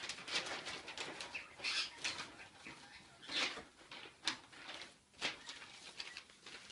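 Paper rustling and crinkling in short, irregular bursts as a folded paper leaflet is handled and folded back up.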